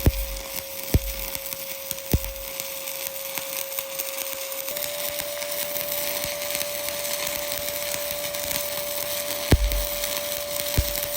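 Shielded metal arc (stick) welding: the arc crackles steadily while a bead is run on steel plate, with a few sharp pops. A steady thin tone runs under it and shifts slightly in pitch about five seconds in.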